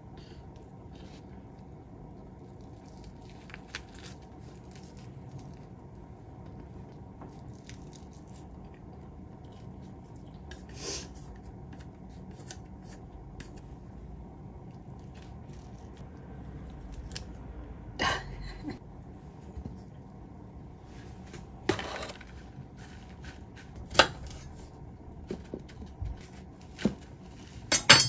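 Sparse clinks and knocks of dishes being set down and handled on a stone countertop over a low steady hum, the loudest knocks coming in the second half.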